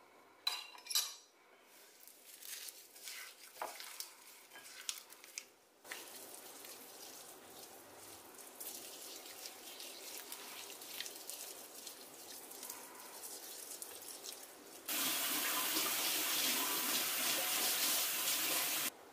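A spoon clinking and scraping in a ceramic bowl as aloe gel and raw sugar are stirred, then a soft gritty rubbing as the sugar scrub is worked over skin. About fifteen seconds in, a tap runs loudly for about four seconds and cuts off suddenly.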